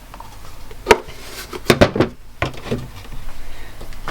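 Kitchen utensils and containers knocking and clattering against a bowl: one sharp knock about a second in, then a quick cluster of knocks near the middle and a couple more after.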